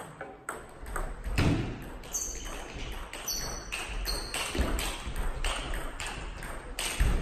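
Table tennis balls being struck and bouncing, making a run of sharp, irregular clicks in a sports hall, with a few heavier low thuds among them.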